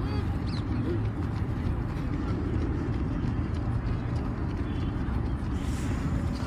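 Steady low rumbling of wind on a phone microphone, with faint voices in the background.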